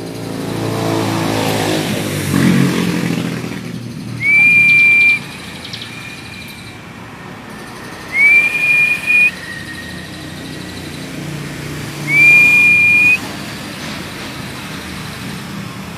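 Three long, clear whistled notes, each sliding up briefly and then held steady for about a second, about four seconds apart. Over the first few seconds a motor vehicle passes.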